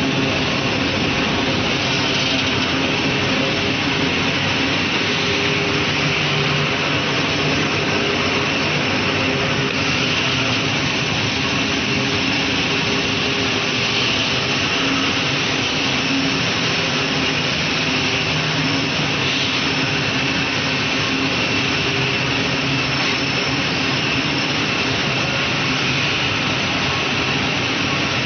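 A spent grain rotary drum dryer line running: a steady rushing machine noise with a faint low hum beneath, unchanging throughout.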